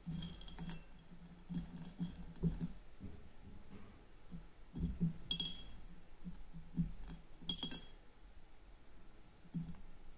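Small loose steel ball bearings clinking and rattling against the metal bearing carriage and one another while they are loaded into it, in scattered groups of sharp clicks with a brief high ring after each. The loudest clinks come about five and seven and a half seconds in.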